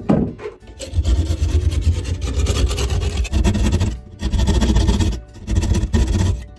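Rasping, scraping noise of a tool working on wood or board, in three stretches: a long one, then two short ones near the end, after a knock at the start.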